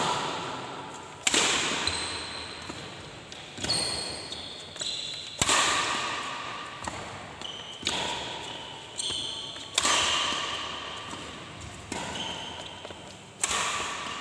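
Badminton rackets striking a shuttlecock in a steady rally, one sharp hit about every two seconds, a louder near hit alternating with a fainter far one. Each hit rings out in the echo of a large, hard-walled hall, with short high squeaks between hits.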